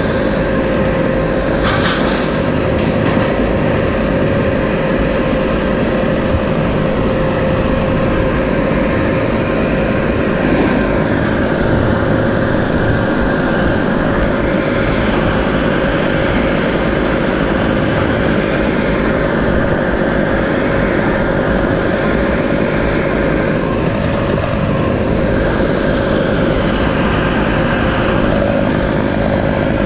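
Engine running steadily at a constant speed, with a fainter whine rising and falling at times above it.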